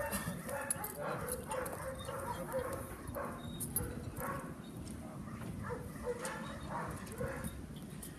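Twelve-month-old Doberman barking repeatedly at a training decoy during bite work.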